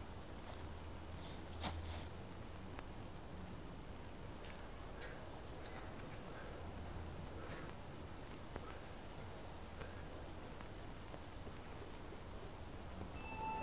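Faint outdoor ambience of insects chirring steadily at a high pitch, with a few soft rustles and one sharper click about two seconds in. Music begins to fade in at the very end.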